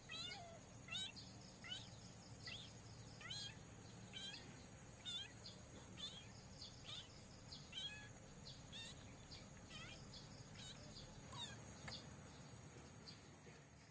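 A series of short, high, downward-sliding chirps repeating roughly once every second, over a faint steady high hiss.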